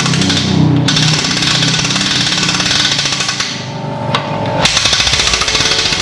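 Hand-cranked winch on a telescopic lighting stand, its ratchet clicking rapidly and steadily as it is wound to raise the stand's round inner pipe.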